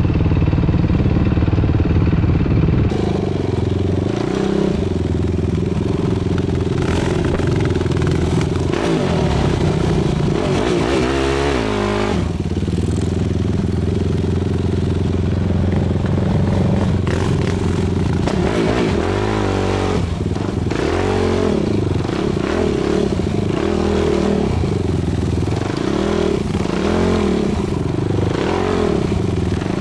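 Yamaha YFZ450R sport quad's engine running on the move, its revs rising and falling again and again, with some clatter from the machine.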